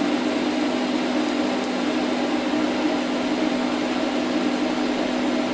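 TIG welder running during a weld: a steady hiss with a constant electrical hum, unbroken throughout.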